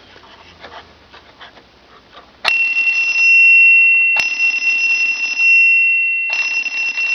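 Antique turn-of-the-century electric trembler doorbell on a 9-volt battery, ringing when the pushbutton is pressed: after faint clicking, the clapper rattles against the gong in three bursts, starting about two and a half seconds in, and the gong's high tone rings on between them.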